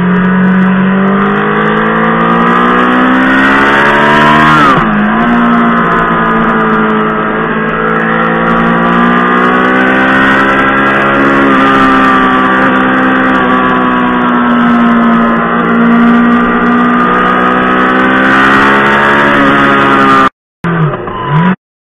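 Honda Fireblade's inline-four engine running hard at around 8,000 to 9,000 rpm, its pitch rising and falling with the throttle. About five seconds in the revs drop sharply and pick up again. Near the end the sound drops out, comes back for about a second, and cuts off.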